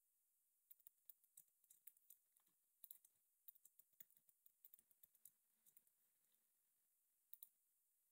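Faint computer keyboard typing: scattered single keystrokes for the first several seconds, then two quick clicks close together near the end.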